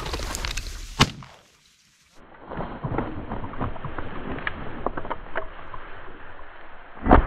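Footsteps swishing through dry grass, then a single loud shotgun shot near the end, fired at a flushing pheasant. A sharp bang also sounds about a second in.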